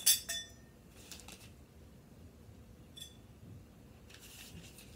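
Hard clicks and clinks from parts of an animatronic clown candy-dish prop being handled during assembly: a loud sharp click with a brief ringing tone right at the start, a smaller click just after, another ringing click about three seconds in, and some rustling a little after four seconds.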